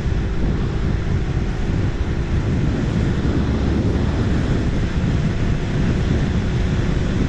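Heavy wind buffeting on the microphone of a motorcycle rider at highway speed, with the Harley-Davidson Street Rod running underneath; a faint steady hum fades out after a couple of seconds.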